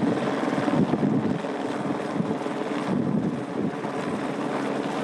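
Eurocopter AS350 B3 helicopter running steadily overhead while carrying a heavy antenna on a long line beneath it, with wind blowing across the microphone.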